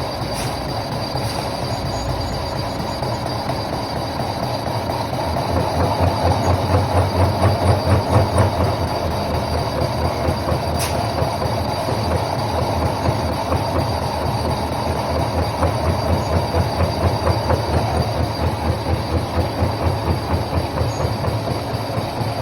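Lathe turning a C-section V-belt pulley: a steady machine noise with an even rhythmic pulsing about three times a second, which swells a quarter of the way in and again past the middle. A single sharp click comes about halfway through.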